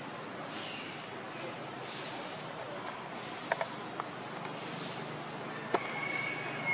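Insects droning: a steady high whine with a rhythmic pulse of hiss about every second and a third. A few short clicks fall in the middle.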